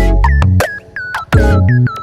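Electronic background music with heavy bass notes, sharp percussive hits and short synthesizer blips.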